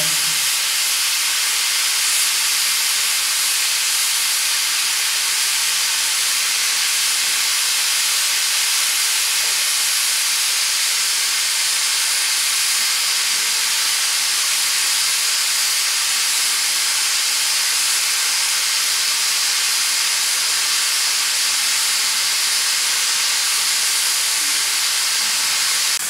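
A row of aluminium pressure cookers on gas burners venting steam past their whistle weights together at full pressure: a steady, very loud hiss that does not break.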